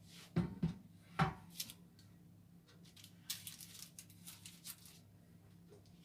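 Kitchen handling sounds from baking prep: three sharp knocks in the first second and a half, then a couple of seconds of light scraping and rustling.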